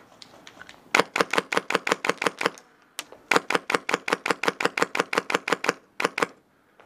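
Airsoft electric gun (AEG) firing in full-auto bursts at about eight shots a second: a burst of about a dozen shots, a short pause, a longer burst of about twenty, then two more shots.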